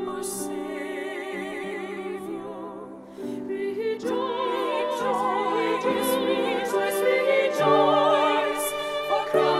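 A women's vocal ensemble of sopranos and alto singing a sacred song, the words 'Rejoice, rejoice, rejoice!', with vibrato, over instrumental accompaniment. The music dips briefly about three seconds in, then swells louder.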